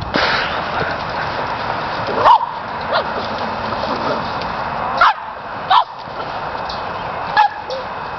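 An excited dog giving four short, sharp barks during play: one about two seconds in, two close together around five to six seconds, and one near the end. A steady rushing noise runs underneath.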